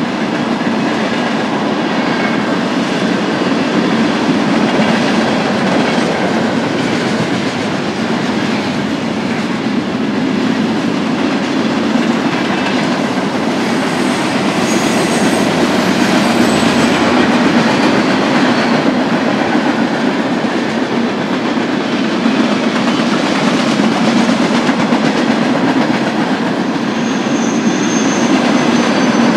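Freight cars of a long BNSF train rolling past: a loud, steady rumble of steel wheels on rail with clickety-clack over the rail joints, and brief faint wheel squeals twice.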